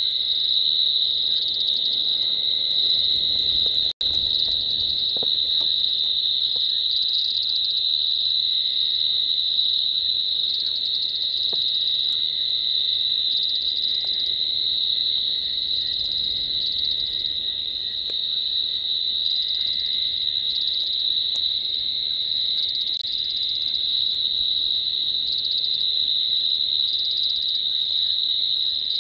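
Steady night chorus of crickets: a continuous high-pitched trill with a fainter, lower trill beneath it. The audio cuts out for an instant about four seconds in.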